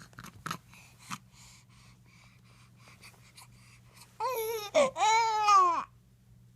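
A baby girl fussing: a short whiny cry about four seconds in, then a longer, louder cry whose pitch rises and falls. Before them come two short sharp clicks, about half a second and a second in.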